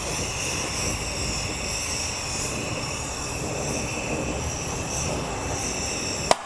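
Oxyacetylene torch flame burning with a steady rushing hiss while it heats a seized lawnmower blade adapter. Near the end comes a single sharp pop: the adapter breaking loose on the crankshaft under the two-jaw puller's pressure.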